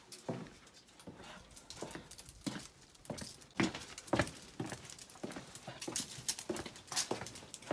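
Walking footsteps on the hard floor of a covered stone passage, about two steps a second.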